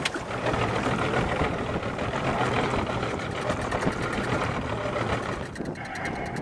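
A boat's motor running steadily under wind and water noise, with a low hum and fine crackling throughout. The sound changes a little near the end.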